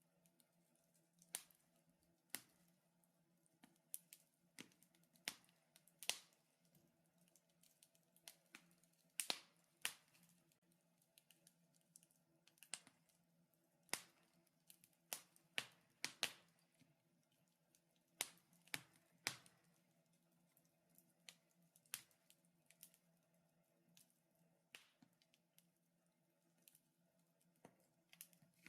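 Wood fire in a fireplace crackling: irregular sharp pops and snaps, roughly one a second, some louder than others, over a faint steady hum.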